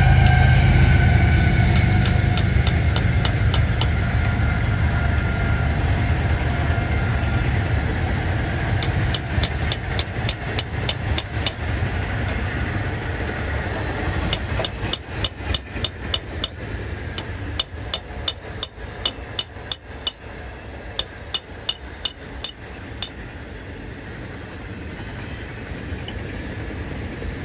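Hammer striking a drift to drive a stuck piston pin out of the piston and connecting rod of a Continental IO-470 aircraft engine. The metal strikes come in quick runs, several a second, with pauses between runs, and the pin is seized in the connecting rod. A steady low hum sits beneath and fades away.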